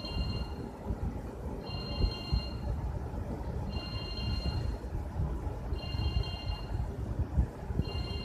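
A telephone ringing: a high ring of several tones, just under a second long, repeating about every two seconds, over a low background rumble.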